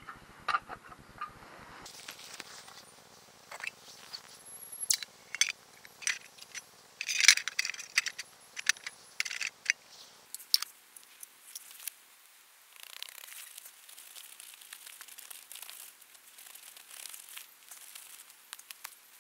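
Gravel and small stones crunching and clattering as a hand scrapes at a hole in stony soil and settles a black plastic box into it, with a burst of sharp clicks and crunches, loudest about seven seconds in. Over the second half it turns to a fainter, steadier rustle and patter with scattered ticks.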